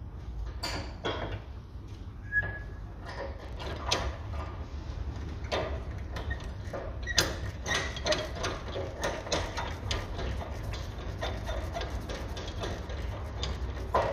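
Spanners working the nut of a car's stabiliser-bar drop link: irregular metallic clicks and knocks, a few sharper ones standing out, over a steady low hum.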